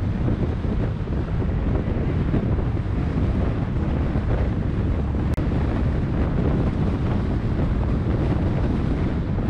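Wind buffeting the microphone as a steady low rumble, with a sudden dropout for an instant about five seconds in.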